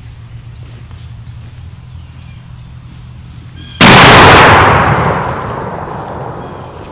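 A single shotgun shot about four seconds in, its report rolling away through the woods and fading over the next few seconds.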